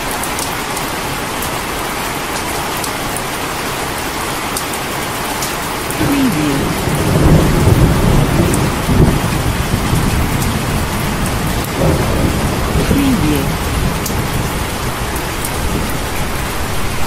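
Heavy rain falling in a steady hiss. Thunder rumbles in low from about six seconds in, is loudest a second or two later, and rolls again briefly near the end.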